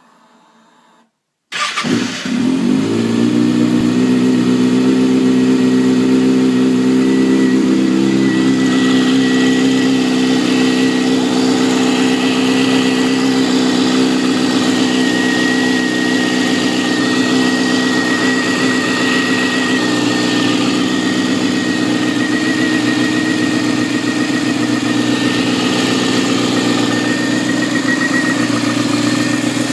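Kawasaki ZX-6R's inline-four engine starting about a second and a half in, then running at a steady idle. A thin, steady high-pitched whine sits above the engine note.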